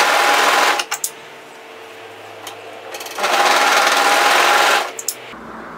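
Brother 1034D overlocker serging the raw end of a fabric strap in two short runs. The first run stops about a second in, and a second run of about a second and a half starts about three seconds in. A few light clicks follow each run.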